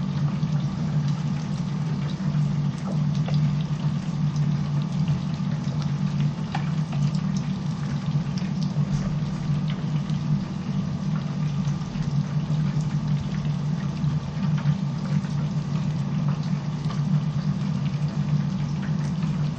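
Chicken deep-frying in a commercial fryer: the hot oil bubbling and sizzling steadily with many small crackles, over a steady low hum.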